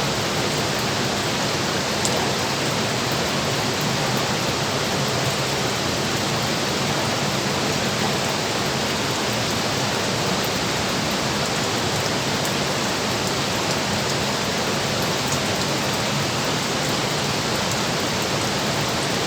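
Steady, even rush of water flowing heavily through a dam.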